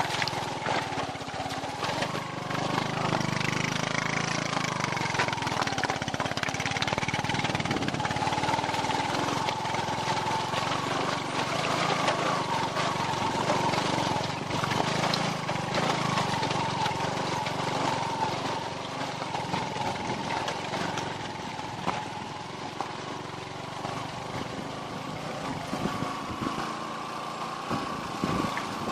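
Vehicle engine pulling steadily in low gear on a rough off-road climb, with frequent knocks and rattles from the bumpy track.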